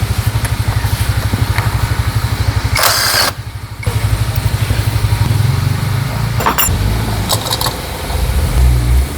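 A motorcycle engine running at idle with a fast, even pulse. About three seconds in, a short loud hiss cuts across it and the sound briefly dips before the engine carries on; a sharp click follows a few seconds later.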